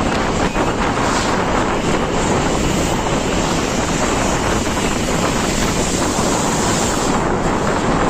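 Steady wind blowing across the microphone over the rushing wash of the sea breaking along the hull of a bulk carrier under way.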